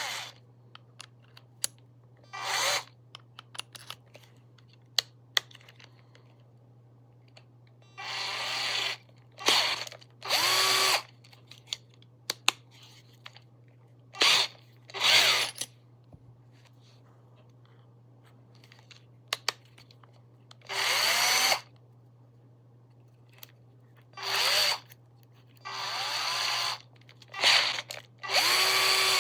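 Small cordless 12 V drill/driver run in about ten short trigger pulls, the motor spinning up and winding down with each one. Small clicks fall between the runs, and a steady low hum runs underneath.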